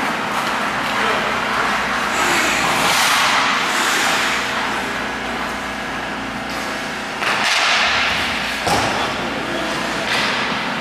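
Hockey skate blades carving and scraping across the ice in quick turns and stops, heard as a series of scraping sweeps, with a sharp thud about nine seconds in.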